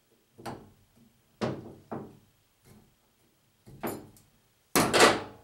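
Snap ring pliers knocking and clicking against a power steering pump housing as the bearing's snap ring is compressed and pulled out: a few sharp separate metal knocks, then a louder double clatter near the end.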